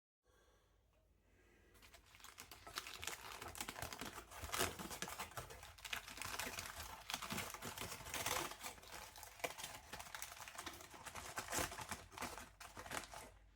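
Aluminium foil crinkling and crackling as it is folded over a tin, a dense, irregular run of small crackles that starts about two seconds in.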